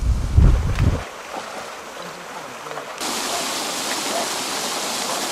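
Paddlewheel aerator churning and splashing fish-pond water, a steady rushing that starts suddenly about three seconds in. Before that, a gusty low rumble of wind on the microphone for about a second.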